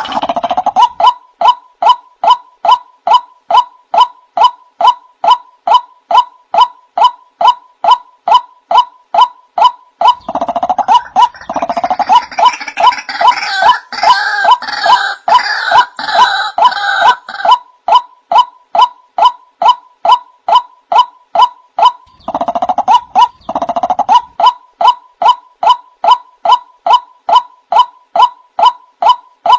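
Male white-breasted waterhen calling a monotonous, repeated 'wak', about two calls a second. For several seconds midway, and briefly again later, a harsher, fuller run of calls overlaps the steady series.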